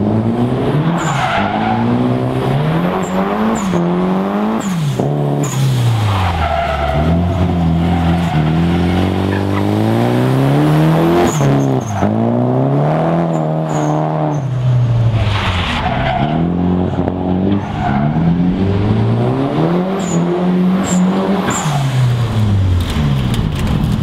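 Drift car engine revving hard and dropping back over and over as the car slides, the engine pitch climbing and falling many times, with bursts of tyre screech and a few sharp cracks.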